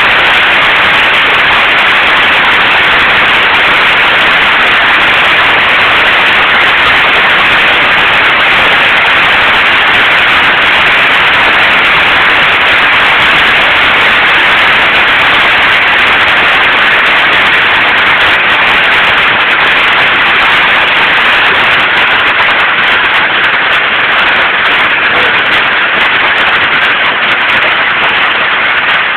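Hail pelting down in a hailstorm, a loud, dense, steady clatter of countless small impacts, easing slightly near the end.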